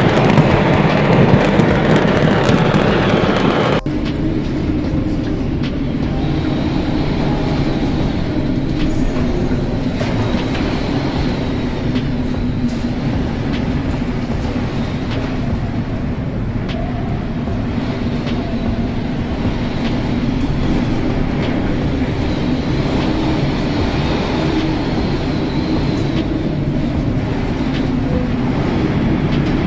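Steady rumble with a low drone, heard aboard an oil tanker pitching through a storm at sea: storm wind and the ship's running machinery. In the first few seconds it is preceded by loud, dense crackling and banging from a fireworks explosion, which cuts off abruptly about four seconds in.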